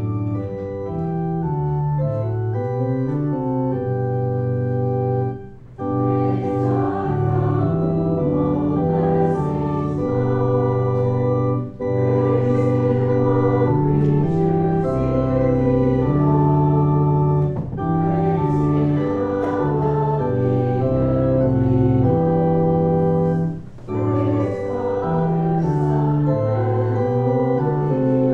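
Church organ playing a slow hymn-like piece in sustained chords, phrase by phrase, with brief breaks between phrases.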